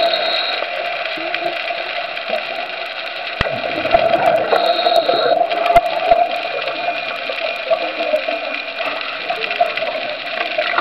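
Underwater noise heard through a dive camera's housing: a steady rushing and bubbling of water, with scattered faint clicks.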